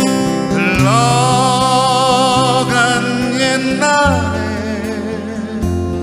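A singer holds one long note with a wide vibrato over strummed acoustic guitar backing in a slow Korean trot ballad. The voice drops away about four seconds in and the accompaniment carries on alone.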